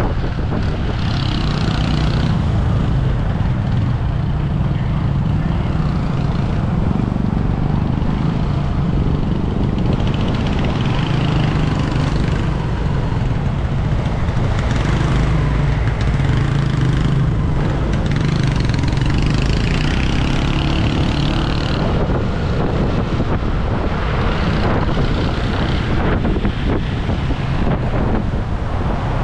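Motor scooter engine running steadily while riding in slow traffic, with wind and road noise over the microphone.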